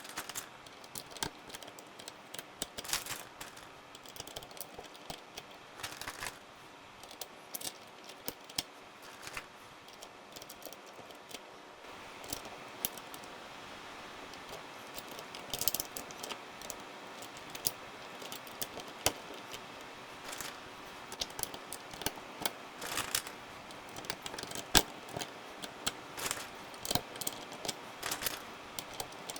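Plastic keycaps on a Royal Kludge RK100 mechanical keyboard being handled and swapped: scattered, irregular sharp clicks and plastic clatter.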